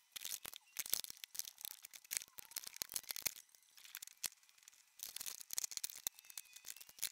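Makeup palettes being handled and shuffled in a drawer: a scatter of light, irregular clicks and taps as the cases knock against each other and the drawer.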